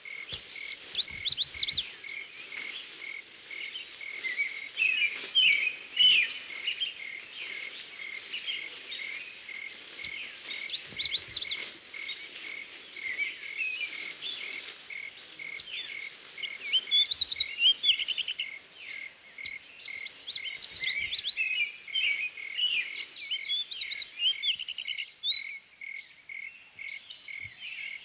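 Songbirds singing in woodland: bursts of quick, high chirping songs come again and again, over an evenly repeated high pulsing chirp.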